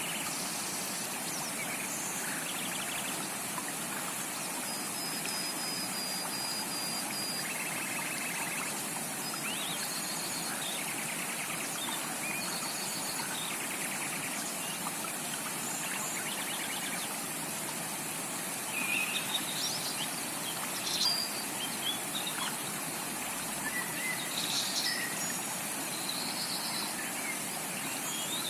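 Steady rush of a tropical rainforest stream, with many birds calling over it: short chirps, rapid trills and one held whistle. The calls come thicker and louder in the second half.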